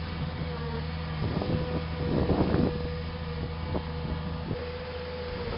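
Heavy vehicle engine running steadily with a constant whine above its hum. A run of knocks and clatter comes about a second and a half in and is loudest around two and a half seconds.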